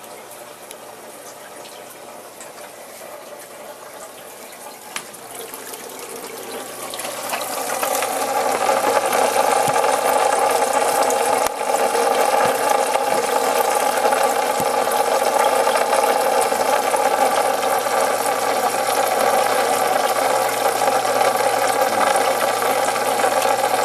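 Aquarium water running in a steady rush, faint at first and swelling loud about seven seconds in, over a low steady hum.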